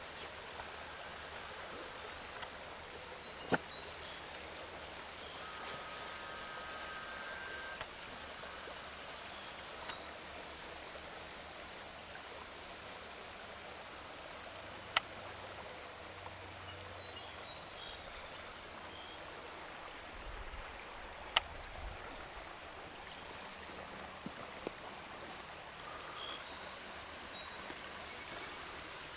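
Shallow river flowing over riffles: a steady wash of water, with a thin, steady high whine over it for most of the time and a few sharp clicks.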